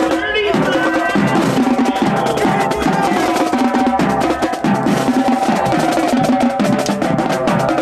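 Marching band drumline playing a fast cadence, led by multi-tenor drums (quads): rapid stick strikes moving around the pitched drums.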